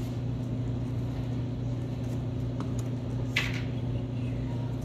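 Steady low background hum, with one short hissing squish about three and a half seconds in as a plastic squeeze bottle of white school glue is pressed.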